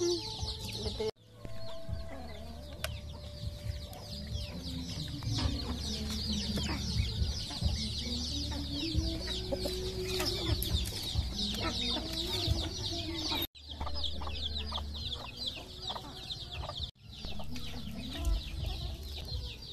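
Farmyard chickens clucking, against a constant chorus of high, rapid chirping.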